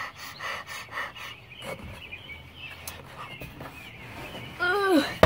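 Light knocks and rustling of someone shifting about on a wooden plank floor. Near the end comes a short vocal cry that falls in pitch, followed by a sharp thump.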